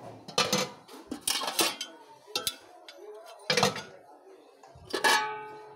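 Stainless steel cookware clanking as lids, pots and a jug are handled and knocked against each other: a run of sharp metallic knocks, the last one, about five seconds in, ringing on briefly as it fades.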